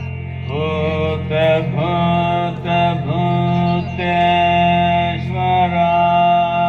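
Devotional mantra chant sung over a steady drone: a single voice holding long notes, sliding into each new pitch.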